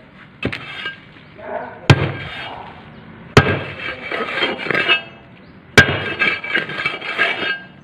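Hand tool knocking and scraping on a steel paving-block mould and its round press plate while sand-cement mix is packed and levelled in it: four sharp knocks, each followed by gritty scraping and rattling.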